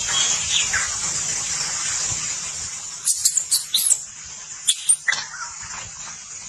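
Baby macaque giving short, shrill squeaks in quick clusters about three seconds in and again around five seconds, the distress calls of an infant being weaned. A steady high hiss runs underneath in the first half.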